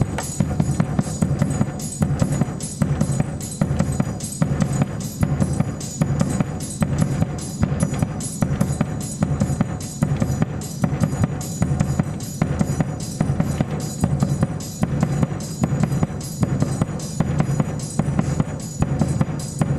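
Surdo bass drum playing a steady quadrilha rhythm along with a recorded percussion loop: low drum strokes in an even, repeating beat, with a faint high ringing above.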